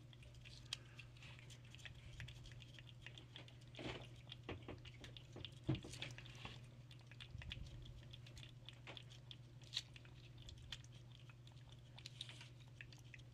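A cat licking Churu paste treat from a squeeze tube held in a hand: faint, quick wet licking and smacking clicks, with a few louder smacks along the way.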